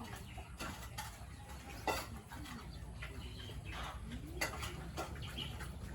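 Farm animals calling in short sounds, over scattered clicks and knocks.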